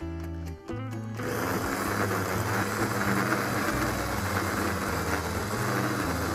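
Small electric food chopper running steadily, its blades grinding frozen mango into a sorbet consistency; it starts about a second in. Background music plays underneath.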